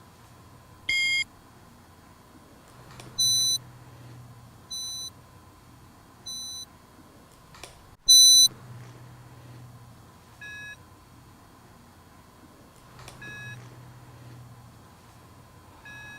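Hearing-test tones: about eight short beeps spaced a second or more apart. The first is mid-pitched, the next ones higher and fading, then a loud high beep about eight seconds in, and lower, fainter ones after it. Between them a faint low swell comes and goes every few seconds, heard as breathing in the headphones.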